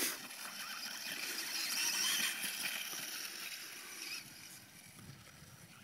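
Venom VMX 450 brushless electric RC dirt bike running across rough grass: motor whine mixed with the swish of tyres through grass, loudest about two seconds in and fading as it moves away.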